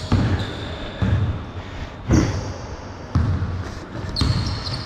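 A basketball being dribbled on a court: about five heavy bounces roughly a second apart, with a few short high squeaks in between.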